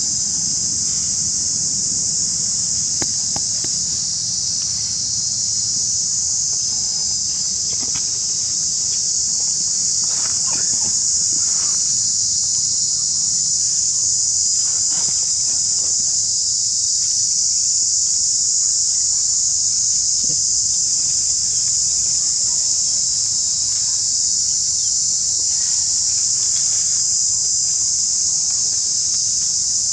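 Insects droning in a continuous shrill chorus, a high, even sound that never breaks.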